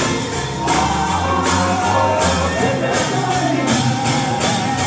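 Live gospel music: singing over a band with bass and a steady, fast beat.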